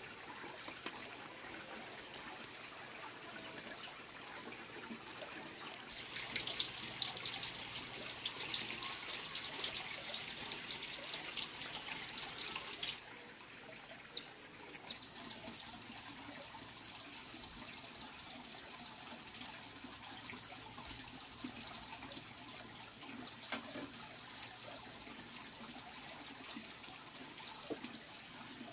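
Hot oil sizzling and crackling as balls of cake dough deep-fry in a wok over a wood fire. It is louder and busier from about six seconds in, then drops suddenly to a quieter steady hiss with occasional pops.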